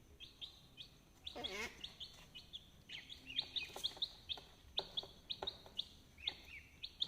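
Chickens calling: a steady run of short, high cheeps, with one lower, fuller call about a second and a half in.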